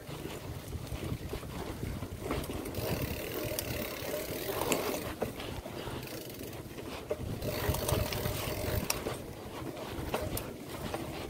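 Wind rushing over the microphone and the rumble of a mountain bike's tyres rolling over a bumpy dirt trail, with scattered clicks and rattles from the bike.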